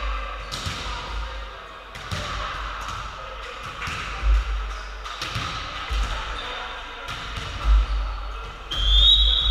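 Volleyball play in a sports hall: several sharp hits and low thuds of the ball and of players landing, echoing in the hall. A referee's whistle is blown near the end.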